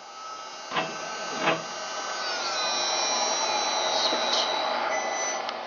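ShopBot CNC router running: two sharp knocks about a second apart early on, then a steady machine noise that grows louder, with a tone sliding down in pitch partway through.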